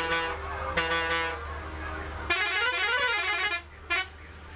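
A bus horn sounding several times: two short multi-tone blasts, then a longer warbling run of tones rising and falling in pitch, and a last short toot near the end. A steady low bus-engine drone runs underneath.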